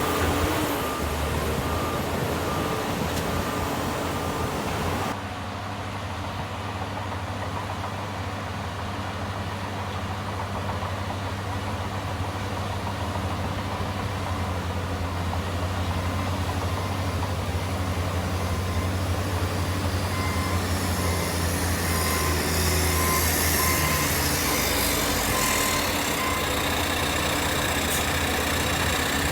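Diesel engine of heavy earthmoving machinery running steadily, with a repeating beep at times.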